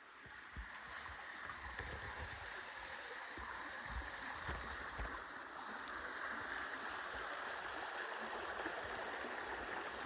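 Snowmelt creek water flowing steadily over rocks, swelling up about half a second in. Occasional low thumps sound underneath.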